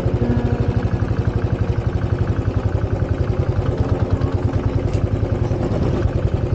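Motorcycle engine running steadily with a rapid, even exhaust beat.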